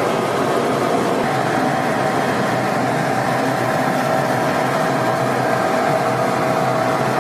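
Steady hum and hiss of ventilation and machinery inside a submarine compartment, with a faint steady tone that comes in about a second in.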